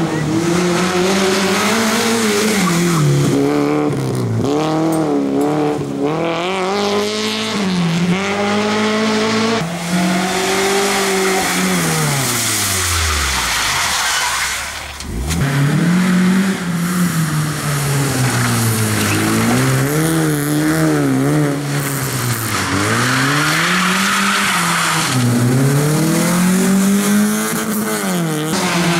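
Small hatchback rally cars' engines revving hard on a rally stage, the pitch climbing and dropping over and over with gear changes and throttle lifts, with tyre squeal at times. The sound dips briefly about halfway through, then picks up again as another car comes through.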